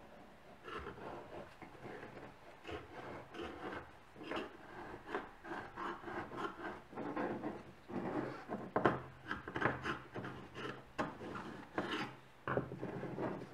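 Screwdriver tip scraping caked deposit and rust off the inside of a thin, curved sheet-metal lantern part, in short uneven strokes of about two a second.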